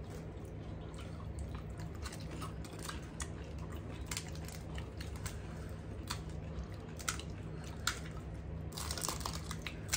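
Crisp gol gappa (pani puri) shells being cracked open with fingers: scattered small, sharp cracks and crunches, coming closer together near the end, over a steady low hum.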